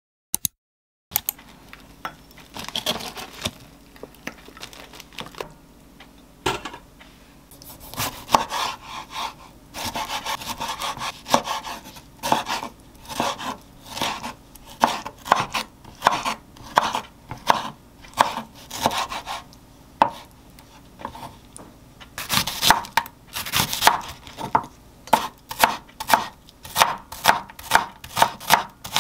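Kitchen knife cutting through tomato and then mincing onion on a wooden cutting board: a long series of sharp knocks of the blade against the board, with quicker, even chopping at about two strokes a second near the end.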